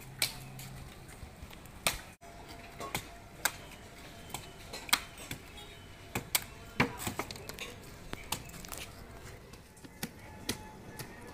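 Machete-like knives hacking into palmyra palm fruits: irregular sharp chops, one or two a second, as the blades bite into the tough fibrous husks.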